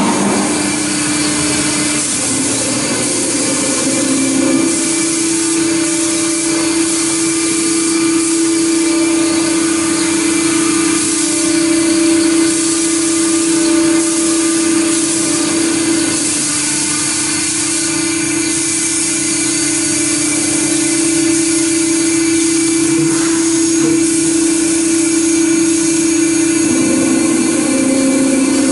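CNC router spindle running with a steady whine while the cutter mills aluminum, a dense cutting hiss over it. The tone shifts briefly in the first few seconds and again near the end.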